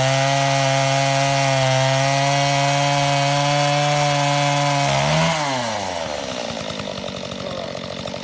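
Older two-stroke chainsaw engine running at a steady high speed, then the throttle is let go about five seconds in and the revs fall quickly to a rough, pulsing idle.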